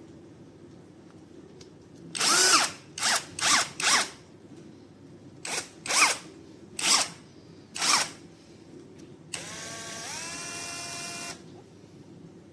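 AKZWOXRO 21V cordless drill driver's motor triggered in about eight short bursts, each whine rising as it spins up, then run for about two seconds, winding up to a steady speed before it stops.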